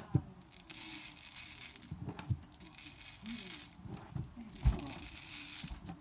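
Glitter glass being sprinkled and shaken over a craft piece: repeated rustling hiss in swells of about a second, with three soft knocks, the loudest about two-thirds of the way through.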